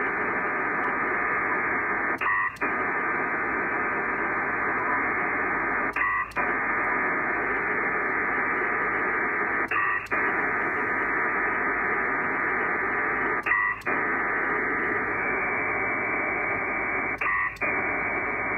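Pactor 3 HF data signal at 2800 bps from an SCS P4 Dragon modem, heard over a radio: a steady, dense hiss of data tones filling the voice band. About every four seconds, five times, it stops for a moment and a short chirp of a few tones is heard, the ARQ turnaround in which the other station answers each packet.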